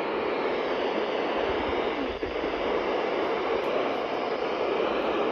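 Steady hiss of radio static from a weather radio receiver, the broadcast voice lost in the noise as the signal fades out.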